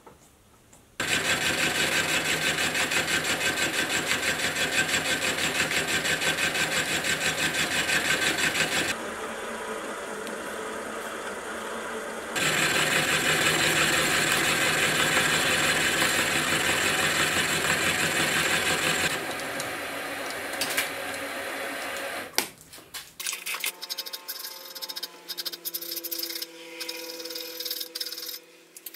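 An 18 mm T-slot cutter in a Sieg milling machine cutting steel: a loud, steady pulsing cut in two passes, with a quieter stretch between them. From about 23 s in, hand file strokes on the steel part clamped in a vise, with the metal ringing.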